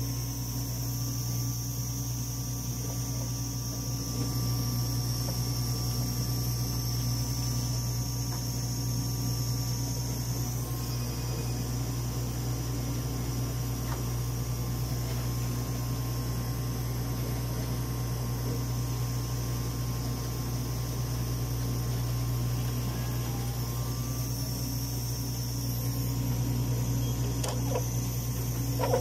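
Steady machine hum with a thin high whine from a Dimension RxL clinical chemistry analyzer's fans and motors running, with a few faint clicks near the end.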